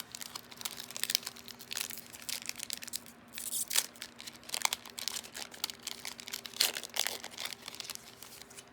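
Foil trading-card booster pack wrapper crinkling and cards being handled, a run of irregular, brief scratchy rustles and crinkles.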